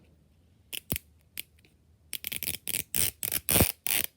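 Plastic packaging of a toy ball being handled: a few light clicks, then about two seconds of rapid crinkling and crackling.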